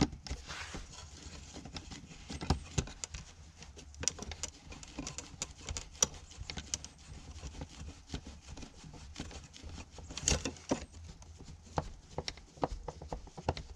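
A hand screwdriver turning a screw into a weatherproof outdoor outlet cover: irregular small clicks and scrapes of the tip on the screw and cover, over a low steady rumble. The screw does not seem to be biting.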